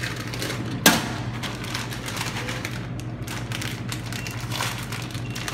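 Lektro-Vend snack vending machine with a steady low hum, a single sharp clack about a second in, and short faint beeps near the end as its keypad buttons are pressed.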